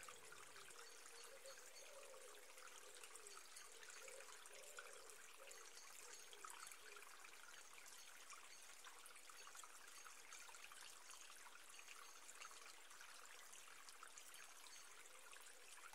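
Near silence: faint steady hiss of room tone, with a faint wavering hum in the first half.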